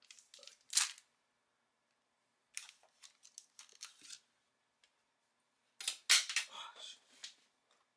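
Short crinkly rustles and light clicks of a plastic penny sleeve and trading cards being handled, in several separate clusters with quiet gaps, the loudest about six seconds in.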